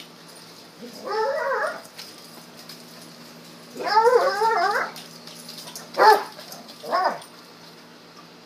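Dogs playing and vocalizing: two longer whining yowls that waver up and down in pitch, then two short yips about a second apart.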